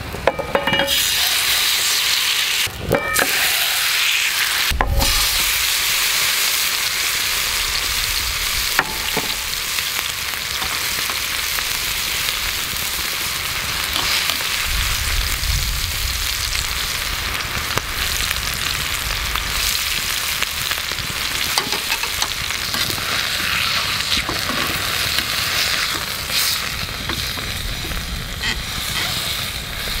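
A thick block of wagyu rump beef sizzling steadily in a hot oiled frying pan over a wood fire, the sizzle starting about a second in as the meat goes into the pan: searing the outside for roast beef. A few sharp knocks come in the first five seconds.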